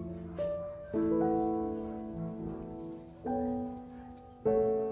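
Background piano music: slow, sustained chords, each struck and left to fade, about four in a few seconds.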